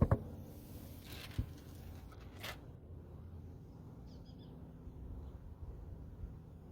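Low steady outdoor background noise, opening with a sharp knock, then a lighter tap about a second and a half in and a brief hiss a second later. A faint bird chirp comes about four seconds in.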